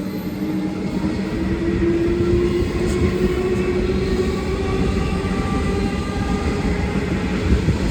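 EDI Comeng electric suburban train pulling out of the station, its traction motors whining in tones that rise slowly in pitch as it gathers speed, over a heavy rumble of wheels on rails. It grows louder in the first couple of seconds.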